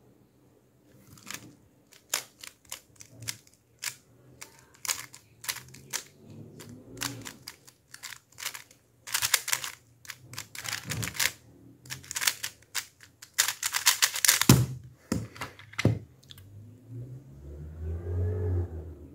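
Plastic 3x3 speed cube being turned fast during a speedsolve, a rapid irregular clatter of layers clicking. About fourteen and a half seconds in it ends with a thump as the hands slap down on the stackmat timer to stop it.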